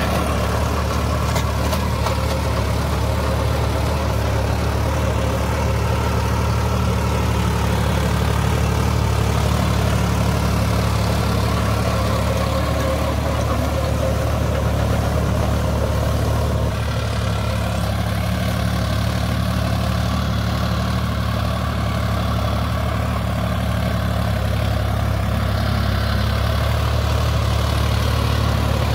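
Sonalika DI 47 RX tractor's diesel engine running steadily under load, driving a Shaktiman rotavator that churns the field soil. The engine note shifts slightly a little past halfway.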